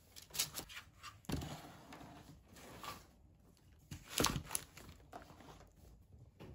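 Black non-woven fabric delivery bag handled on a wooden table: short rustles and a few knocks, the loudest about four seconds in as the bag is set down.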